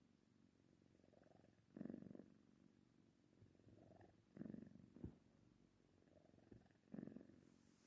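A cat snoring, a quiet purr-like rumble that swells into a louder breath about every two and a half seconds, three times here.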